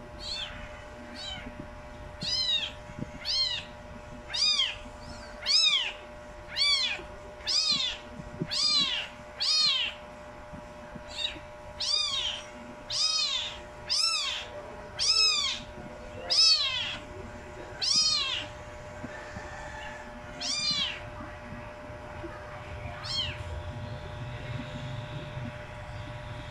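Very young kittens meowing: short, high-pitched mews, each rising and then falling in pitch, about one a second, thinning out to a few scattered calls after about 18 seconds.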